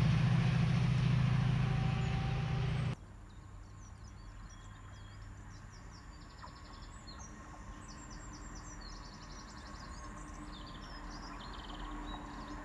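A diesel train's engine running with a loud, steady low hum that cuts off abruptly about three seconds in. After that it is quiet, with small birds chirping repeatedly.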